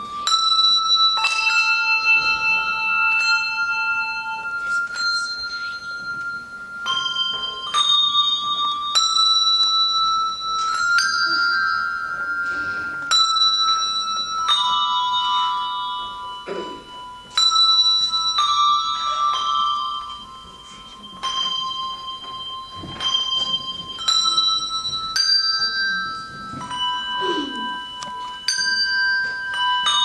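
Handbell choir playing a slow tune: hand-rung bells struck one or a few at a time. Each note rings on and overlaps the next.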